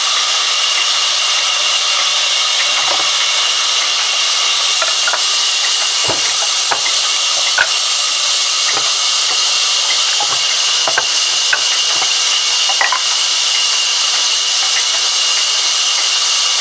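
Large sawmill band saw running with a steady loud hiss as its blade cuts a log, with scattered light clicks and knocks through the middle of the stretch.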